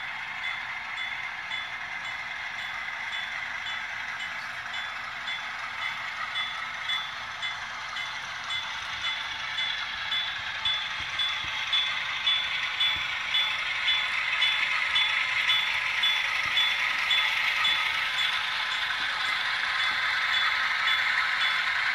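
HO scale Atlas U33B model diesel locomotives running past. Their ESU sound decoders play a GE diesel engine sound through small onboard speakers, thin and without bass, mixed with mechanical running noise, and it grows steadily louder as they approach. A regular clicking about twice a second comes in about eight seconds in.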